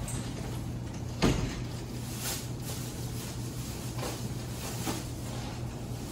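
A steady low hum with one sharp knock a little over a second in and a few fainter clicks after it.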